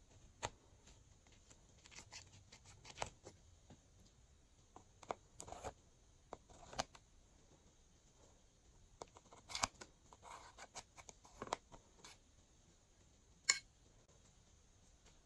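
Slime and craft materials being handled by hand: scattered sharp clicks and short crackling, rustling sounds at irregular intervals, the loudest near the end.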